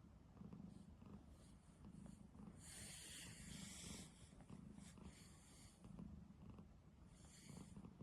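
A sleeping cat snoring faintly: a low rumble that swells and fades with each slow breath, with an airy hiss on three of the breaths.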